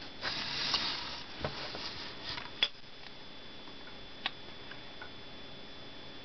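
A plastic Sleepy Sounds Donald Duck nightlight being handled and turned on a table: a short rustle at the start, then a few scattered light clicks and taps. The toy itself gives no voice or sound, its speaker having come disconnected.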